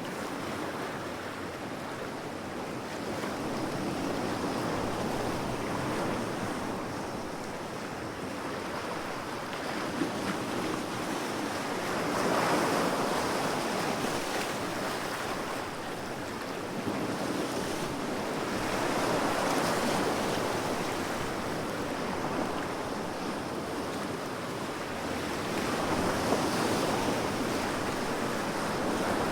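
Sea waves breaking on the shore: a steady wash of surf that swells and falls back in slow surges, about one every seven seconds.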